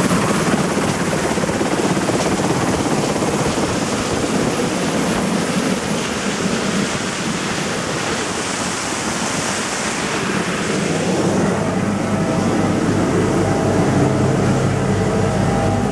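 Sikorsky S-61N helicopter running on the ground with its rotor turning: a loud, steady noise of the twin turboshaft engines and rotor, with a thin high whine over it. Near the end the sound is heard from inside the cabin, where the highs fade and a low steady hum comes forward.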